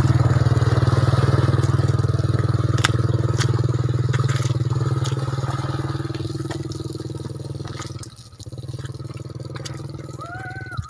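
Small motorcycle engine running steadily as it labours through mud, growing fainter as it pulls away and dropping off sharply about eight seconds in. Scattered sharp clicks and crunches sound over it.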